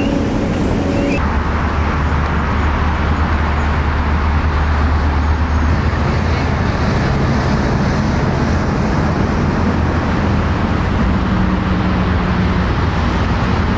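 Steady city traffic noise: a continuous rumble and hiss of passing road vehicles.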